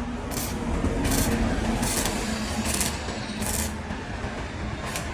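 A hand tool scraping over concrete in repeated strokes, about one a second, over a steady low machine hum.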